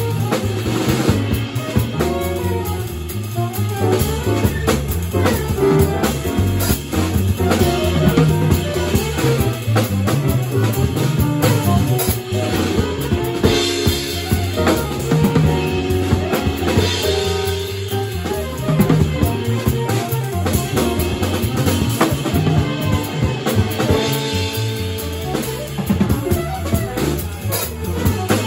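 Live jazz quartet playing: saxophone carrying held melodic lines over electric keyboard, bass and a drum kit keeping a steady groove with cymbals and snare.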